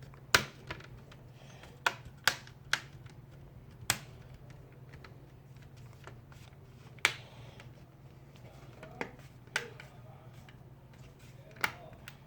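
Plastic laptop screen bezel being pressed back on, its clips snapping into place with about nine sharp, irregularly spaced clicks; each click means a clip has seated.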